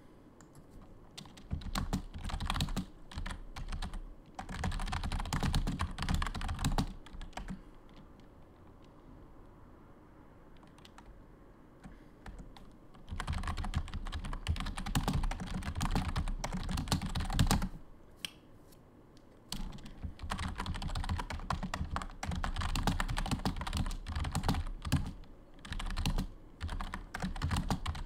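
Typing on a computer keyboard: fast runs of key clicks in three bursts, with a pause of several seconds between the first and second.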